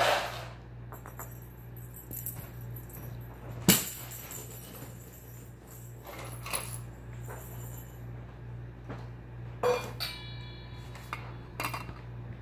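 Dishes and cutlery clinking and clanking as they are put away: about five separate sharp clanks, the loudest about four seconds in, and one near ten seconds in that rings briefly.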